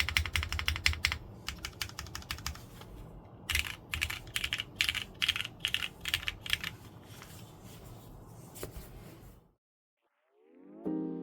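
Typing on a Neo60 Core 60% mechanical keyboard with Cherry MX Hyperglide Black linear switches (lubed, filmed, 45 g springs), an aluminium plate with no foam, and ABS double-shot Cherry-profile keycaps: bursts of keystrokes with short pauses, thinning to one last keystroke and then stopping. After a moment of silence, soft piano music starts near the end.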